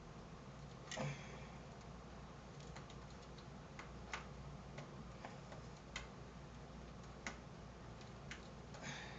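Scattered small plastic clicks and ticks, a slightly louder one about a second in, as the split 4+4-pin CPU power connector of a power-supply cable is handled and pushed into the motherboard socket one half at a time.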